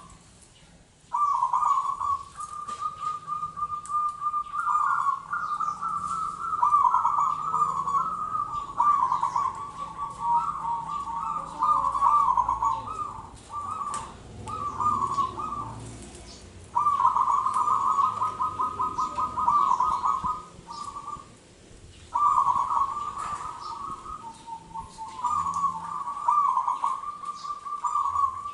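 A local zebra dove (perkutut) singing its rapid, rolling cooing song in long phrases, broken by a few short pauses.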